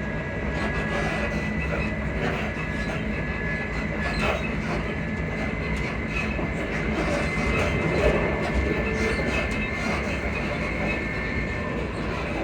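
Class 334 Juniper electric multiple unit running, heard from inside the carriage: a steady rumble of wheels on the track, a thin high whine held throughout, and scattered short squeaks and clicks from the suspension.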